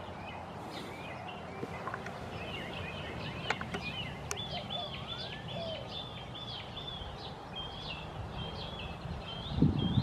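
Songbirds chirping and singing over steady outdoor background noise, with one bird repeating a quick run of high notes through the middle. A few low bumps near the end.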